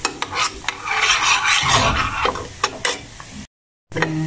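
Spoon stirring and scraping in a pan of coconut curds frying and sizzling in coconut oil, browning into latik. There are irregular scraping clicks over the sizzle, and the sound breaks off for a moment near the end.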